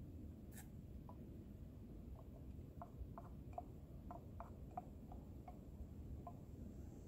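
Whittled wooden spoon scraping and tapping in a Stanley stainless steel camp cup: a faint, irregular string of light ticks, with one sharper click just after the start.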